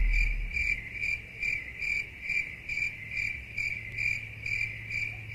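A cricket chirping steadily, about two chirps a second, each a short high-pitched trill, over a faint low hum.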